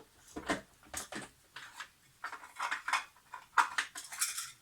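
Small metal parts and tools clicking and rattling in a string of light, irregular clinks: the sound of someone rummaging for small screws.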